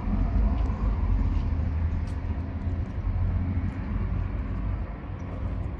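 Diesel engine of a SHACMAN garbage compactor truck idling: a steady, low, even drone.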